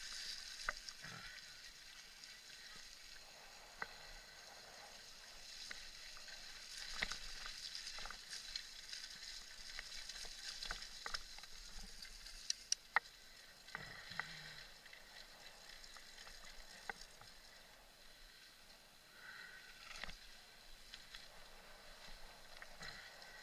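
Mountain bike rolling fast over a muddy dirt trail: a faint crackling hiss of tyres and wind, broken by scattered clicks and rattles as the bike goes over bumps.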